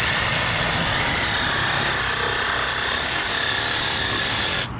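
Pressurized water jetting out of an irrigation line with a loud, steady hiss, cut off suddenly near the end as the flow is shut.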